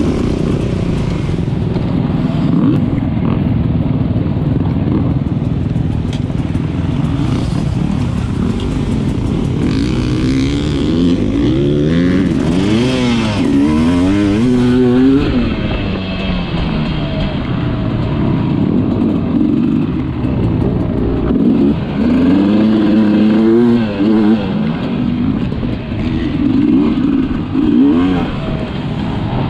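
Sherco 300 enduro motorcycle engine heard up close from on board, revving up and down over and over as the throttle is opened and shut, with a constant rushing noise underneath.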